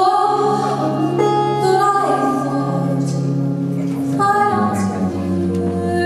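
A woman singing held, gliding notes into a microphone, accompanied by electric archtop guitar and upright double bass.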